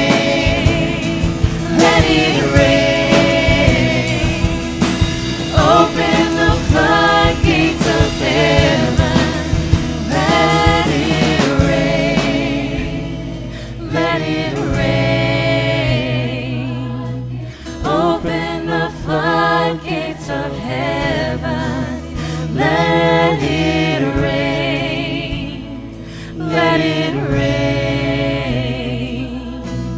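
Live worship music: voices singing over a band with sustained low bass notes, with busy percussion in the first dozen seconds that then drops back.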